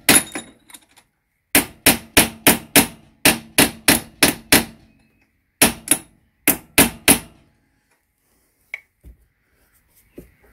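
Hammer blows driving a new steering head bearing race into a BMW F800GS's steering head, struck through an old bearing race used as a driver: three quick runs of about six ringing blows each, roughly four a second, ending about seven seconds in. The race is going in easily and seating fully.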